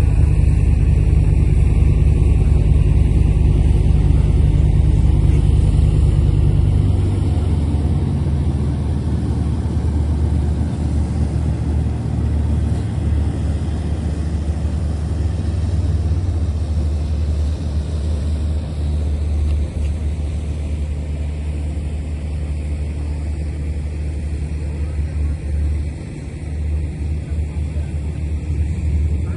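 A large engine running steadily, a low hum with some rushing noise over it, its lowest note dropping away about seven seconds in.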